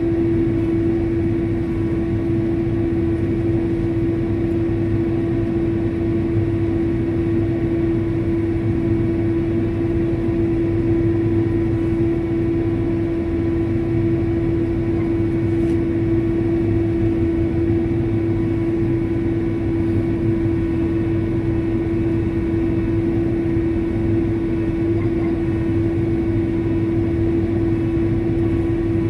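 Steady drone of a farm sprayer's engine and running gear heard from inside the closed cab, a constant hum over a low rumble.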